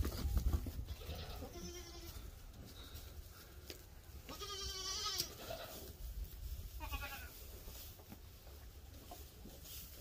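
Goats bleating as they come to the hay: three calls, the longest a quavering bleat about four to five seconds in, the others shorter and fainter. A low bump and rustle comes right at the start.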